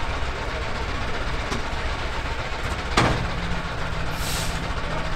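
Narrow-gauge diesel locomotive's engine idling steadily, with a sharp knock about three seconds in and a short hiss a second later.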